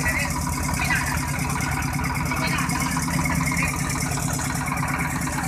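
A fishing boat's engine running steadily, with a fast, even beat.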